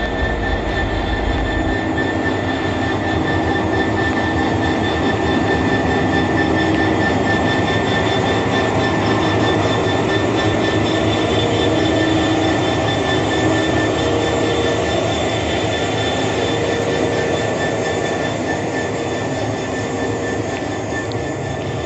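GB Railfreight Class 66 diesel locomotive idling while it waits, its two-stroke EMD V12 engine running steadily with a constant high-pitched whine over the drone.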